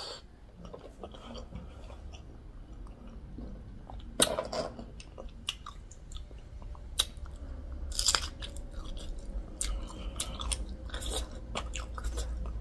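Close-miked chewing of a pork momo dipped in tomato achar, with wet mouth clicks and smacks and a few sharper bites, the loudest about four and eight seconds in.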